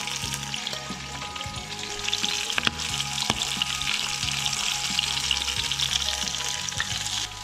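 Flour-and-cornstarch-battered calamari rings frying in hot oil in a frying pan: a steady sizzle full of crackling pops. Metal tongs click against the pan a couple of times as the rings are turned.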